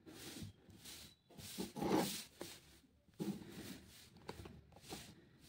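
Soft rustling and handling noises of a wire and a circuit board being pressed onto a lithium-ion battery pack, with a few small clicks.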